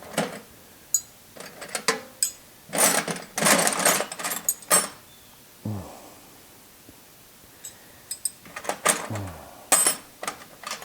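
Metal hand tools clinking and clattering as wrenches are rummaged through in search of a 10 mm wrench, with a couple of brief low hums from the man partway through.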